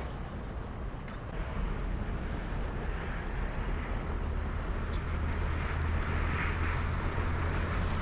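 Wind noise on the microphone over a steady outdoor hiss of open sea water, with no distinct events. The hiss gets a little louder about three seconds in.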